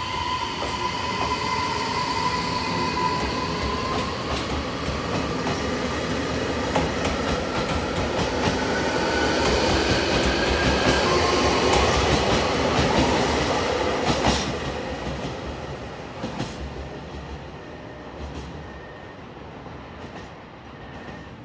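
JR Hokkaido 733-3000 series electric train pulling away from a station, its Mitsubishi IGBT VVVF inverter whining in several tones that climb in pitch as it accelerates. The wheels rumble and click over rail joints as the last cars pass, about two thirds of the way through, then the sound fades as the train leaves.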